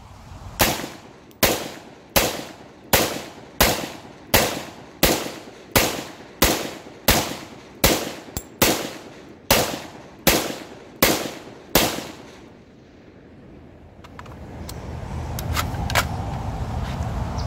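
Inter Ordnance M215 AR pistol with a 7.5-inch barrel, chambered in 5.56 NATO, fired semi-automatically: about sixteen sharp shots at an even pace of roughly one every 0.7 seconds, then the shooting stops about twelve seconds in.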